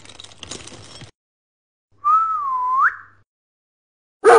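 A single whistled note about a second long, dipping slightly in pitch and then sliding sharply upward at the end. Right at the very end a dog's bark begins.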